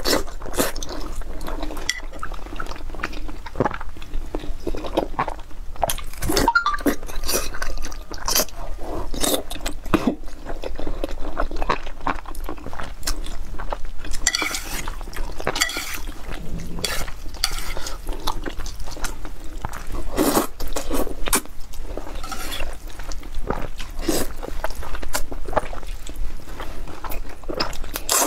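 Close-miked eating sounds: wet chewing of braised pork and glass noodles, with chopsticks clinking against the metal bowl and stirring the broth, and slurping of glass noodles near the end.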